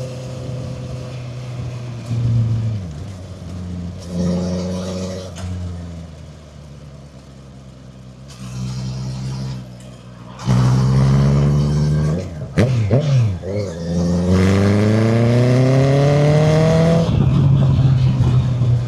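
Honda CB650F's inline-four engine through a custom muffler made from a CBR650R exhaust, accelerating. It starts quieter and fairly steady, then about ten seconds in turns loud with the pitch climbing, drops briefly, and climbs again for several seconds before falling near the end.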